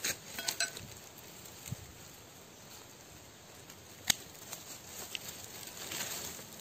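Light rustling and crumbling of soil and dry leaves, then a single sharp snip about four seconds in as pruning shears cut at the base of a small serut (Streblus asper) tree being dug out. A few lighter ticks and more rustling follow near the end.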